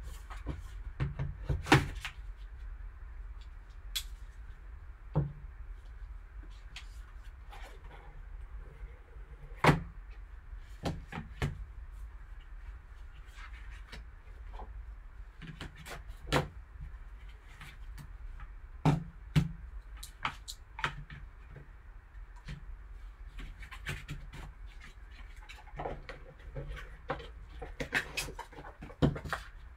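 Handling of a sealed trading-card box as it is cut open and unpacked: scattered clicks, knocks and scrapes of cardboard, a knife and a card case on the table, over a steady low hum.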